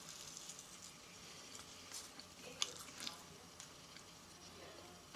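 Faint mouth sounds of someone chewing a soft marshmallow: a few small, brief clicks and smacks over a quiet room.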